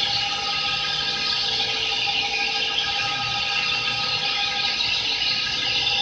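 CNC wheel lathe (CK6197W) turning the face of a spinning alloy wheel: the cutting tool and machine give a steady whine of several tones over a dense hiss.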